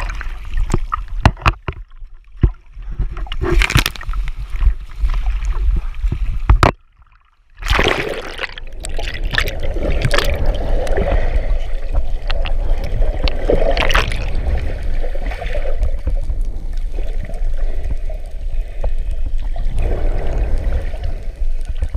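Water churning and bubbling against a camera as it breaks the surface and goes under, with sharp knocks and splashes. It drops out briefly about seven seconds in, then settles into a steady muffled underwater rush.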